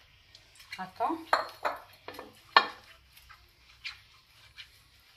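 Light clinks and taps against a glass baking dish as oil is poured into it and brushed over the bottom, about half a dozen, the loudest about two and a half seconds in.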